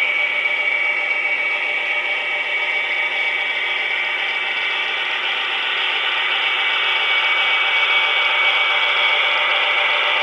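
HO-scale Atlas GP40-2W model diesel locomotive passing, its onboard sound decoder playing diesel engine sound through a small, tinny speaker, mixed with the mechanical rattle of the model's drive and wheels on the track. The sound is steady and gets slightly louder in the second half as the locomotive comes closest.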